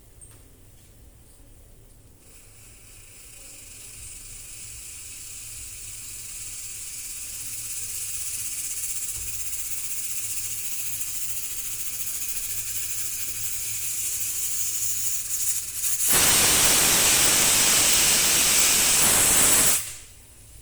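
Pressure cooker hissing as steam leaks out, growing steadily louder. About three-quarters of the way through, a loud blast of steam from the whistle vent lasts about four seconds and then cuts off abruptly.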